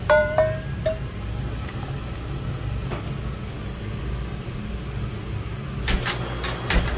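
Steady low rumble of a commercial kitchen's gas range burners. Near the start there is a brief metallic ring, and near the end several sharp clacks as tongs knock against earthenware bowls.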